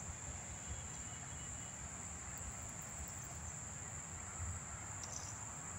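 Steady high-pitched insect chorus, one constant shrill drone over a faint low outdoor background.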